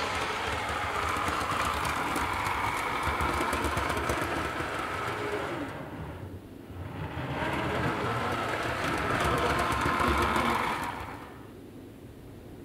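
Model train running over new track and points: the small electric motor whirs while the wheels click rapidly over rail joints and point frogs. It runs in two stretches with a short break about six seconds in, then stops a little before the end.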